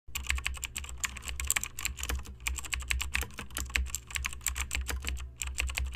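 Computer keyboard typing: a rapid, dense run of keystroke clicks over a low steady hum.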